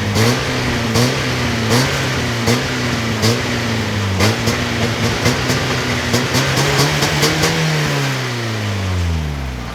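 Mazda Miata NA6's 1.6-litre four-cylinder engine with a Yonaka aftermarket exhaust, heard from inside the cabin while driving. Its pitch rises and dips in short steps with sharp ticks about every second, then falls steadily over the last two seconds as the car slows toward idle. The exhaust is barely louder than stock.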